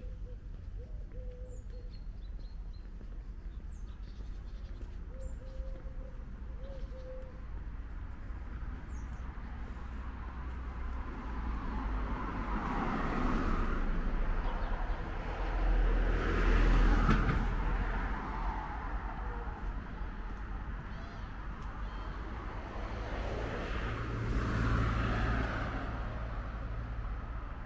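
Street traffic on a city boulevard: vehicles pass one after another over a steady low rumble, each swelling and fading, the loudest about halfway through. Birds chirp faintly during the first several seconds.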